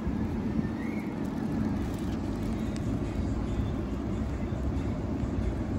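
A CAF Urbos 100 light rail tram standing at the stop gives a steady low hum and rumble.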